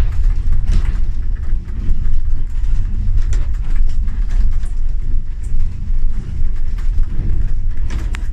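Ride noise inside the upper deck of a moving trolleybus: a steady low rumble with scattered rattles and knocks from the body.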